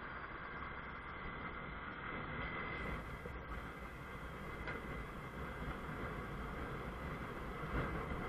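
Honda CBF 125's single-cylinder four-stroke engine running under way, under a steady rush of road and wind noise. A brief knock comes near the end.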